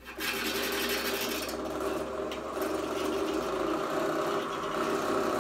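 Pillar drill motor running steadily with a held whine while a twist bit is fed into the edge of a 12 mm aluminium plate, drilling lengthwise through it.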